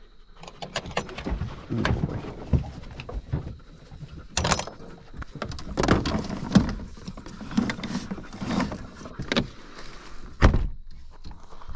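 Metal kennel-box doors latching and gear clattering in the cargo area of a vehicle, a series of knocks and rattles, then the rear liftgate swung down and shut with a loud thud about ten seconds in.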